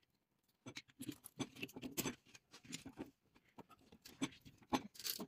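Screwdriver scraping and prying at a scrapped electric motor's winding: faint, irregular scratches and small metal clicks.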